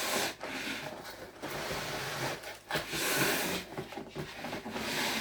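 Cardboard shipping box and packaging scraping and rustling as a bass guitar is slid out of it, in several stretches with short pauses between.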